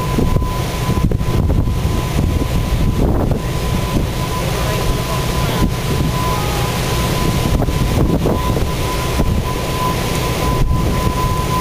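Wind buffeting the microphone on the open deck of a ferry under way, over the steady rumble of the ship and its churning wake. A thin, steady high whine runs underneath.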